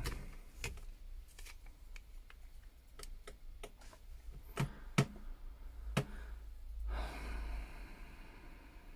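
Scattered light clicks and taps of a freshly repaired iPhone 6 being handled for testing, with a few sharper clicks around the middle and a short rustle about seven seconds in.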